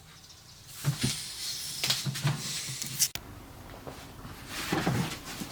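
A few scattered mechanical clicks and light knocks from the Erika 5 portable typewriter being handled.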